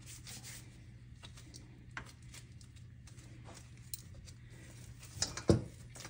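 Quiet handling of soft dough in a stainless steel bowl with gloved hands: a few light clicks and taps, then a dull knock near the end.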